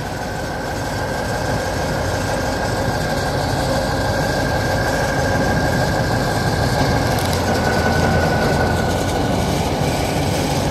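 Kirovets K-700 tractor's diesel engine running hard under load as it pulls on a tow rope, a steady rumble with a high whine over it, growing louder over the first few seconds.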